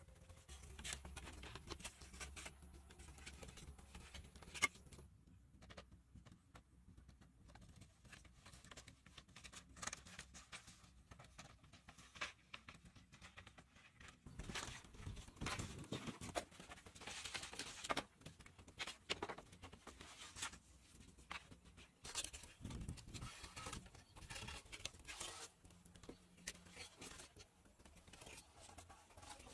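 Faint, irregular clicks, light knocks and scrapes of bamboo poles being handled, with rustling. A sharp click stands out about four and a half seconds in.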